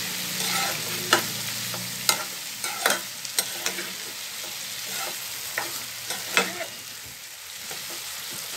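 Sliced mushrooms sizzling in oil in a nonstick kadai while a metal spoon stirs them, with irregular sharp clacks of the spoon against the pan over a steady hiss of frying.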